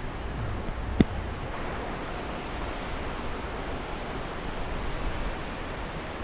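Steady hiss with a faint, steady high-pitched whine over it, and a single sharp click about a second in.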